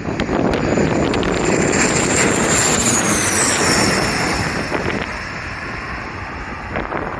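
Bombardier regional airliner passing low overhead. Its engine noise swells to a peak and then fades, with a high whine that drops in pitch as it passes about three seconds in. Strong wind buffets the microphone throughout.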